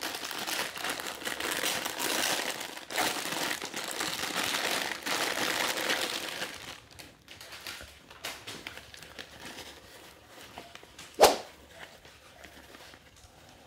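Clear plastic packaging bag of a posture brace crinkling and rustling as it is handled and opened, for about seven seconds; then quieter scattered handling rustles, with one sharp snap about eleven seconds in.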